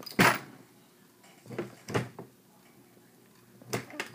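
A handful of sharp clacks and knocks from hand ammunition-reloading tools and brass cartridge cases being worked, the loudest just after the start.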